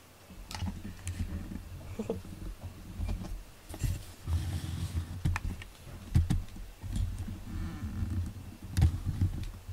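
A cat growling low, mixed with scattered clicks and rustling as the cats shift around.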